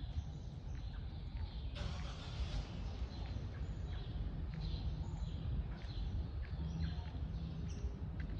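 Small birds chirping over and over in the street trees, over a steady low rumble and the soft footsteps of someone walking. A brief rushing hiss comes about two seconds in.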